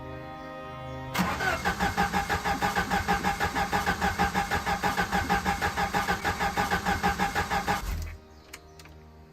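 Jeep engine being cranked by its starter: a steady rhythmic churning of about five or six pulses a second for roughly seven seconds, never catching, then cutting off with a low thump and a couple of clicks. The engine won't start.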